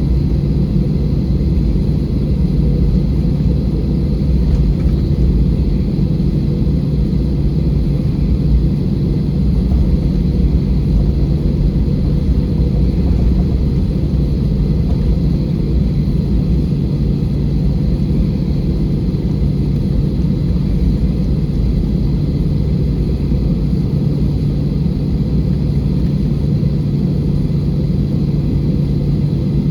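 Steady low rumble of an Airbus A320 heard inside the passenger cabin: engine and air noise with a constant low hum, unchanging throughout.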